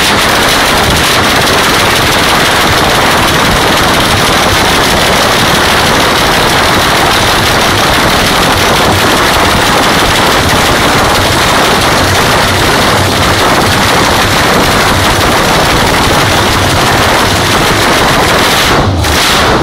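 Roots-supercharged V8 of a rat-rod pickup race car running loudly and steadily at standstill through short open side exhausts, on its first run-in.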